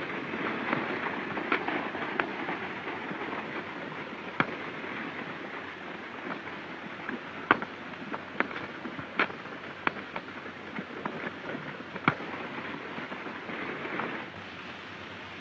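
A gunfight on an old film soundtrack: a dozen or so single gunshots cracking at irregular intervals over a steady rushing noise. The noise drops away near the end.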